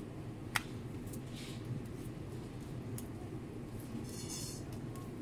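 Tarot cards being dealt onto a glass tabletop: one sharp tap about half a second in, then a few light taps and a short card slide near the end, over a steady low background hum.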